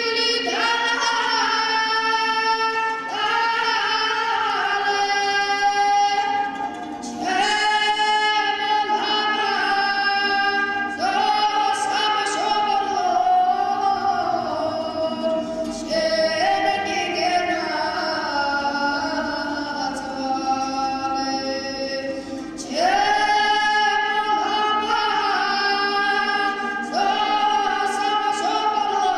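A boy singing a Georgian folk song solo while strumming a panduri, the Georgian three-stringed lute. The song moves in phrases of long held notes with short breaks every few seconds.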